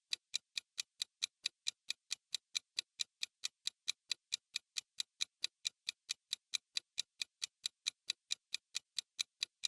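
Clock-ticking sound effect: an even run of sharp ticks, about five a second, timing the pause for a quiz answer.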